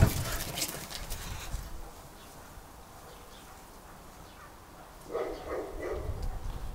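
Two tomcats in a fight standoff: the noise of a scuffle dies away over the first second or so, then after a quiet spell come low, pulsing cat growls and moans from about five seconds in.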